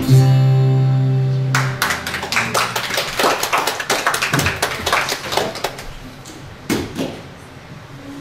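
The last chord of a song on acoustic guitars rings out and fades, and then a congregation applauds for a few seconds, the clapping thinning out and dying away.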